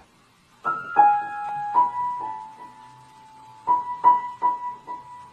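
Piano keys pressed by a cat's paws: scattered single notes with pauses between them, then the same note struck several times in a row near the end.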